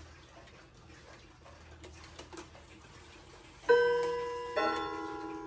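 Hermle bim-bam wall clock striking the half hour as its minute hand is turned: a few faint clicks, then two struck notes about a second apart, a higher one then a lower one, each ringing on.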